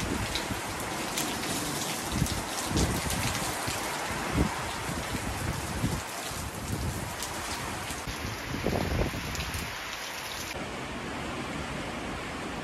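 Heavy tropical-storm rain falling steadily, with many fine drop ticks and occasional low thuds. About ten seconds in, it changes abruptly to a smoother, duller hiss.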